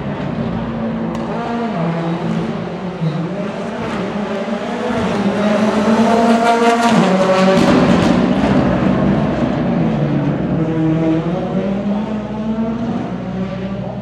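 Rally car engine driven hard through the gears, its pitch climbing and then dropping at each shift. It grows louder to a peak about halfway through as the car passes, then fades.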